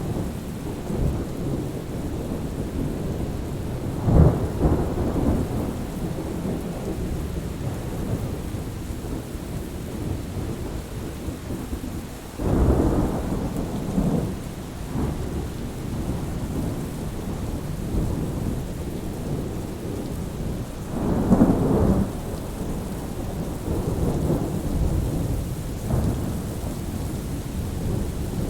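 Thunderstorm: steady rain with thunder rumbling three times, about four seconds in, again around thirteen seconds and once more around twenty-one seconds.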